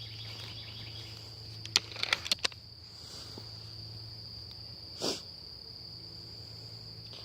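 A quick cluster of sharp clicks from a gun being loaded about two seconds in, and a short soft noise about five seconds in, over a steady high-pitched drone of crickets.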